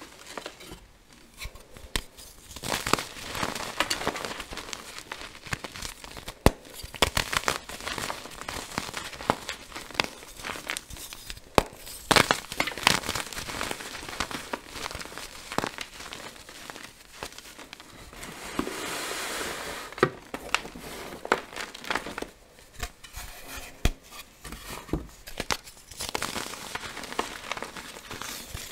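Lumps of dyed gym chalk crushed and crumbled between bare hands: dry crunching with many sharp snaps as pieces break. A stretch of softer, steadier rustling comes about two-thirds of the way through.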